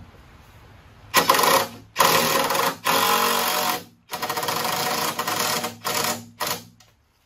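Cordless impact driver driving long deck screws through a wooden floor joist into a blocking piece, in several runs of about a second each. The last runs are short bursts near the end.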